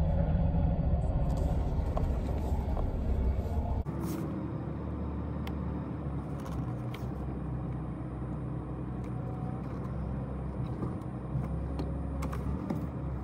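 Toyota 4Runner's engine running at low speed, heard from inside the cabin while the truck is manoeuvred with a camping trailer hitched. The engine note drops and settles about four seconds in, with a few faint clicks.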